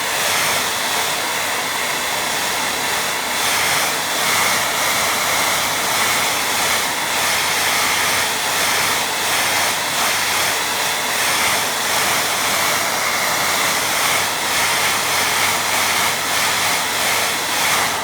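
Hair dryer blowing steadily, drying wet watercolour paint, switched off abruptly at the end.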